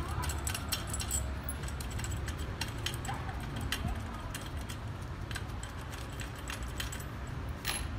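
Loose metal parts and bolts clinking and tapping as they are handled: irregular light clicks, over a steady low hum.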